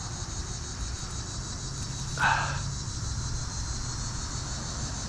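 Steady, high-pitched chorus of insects trilling around the pond, with a brief noise about two seconds in.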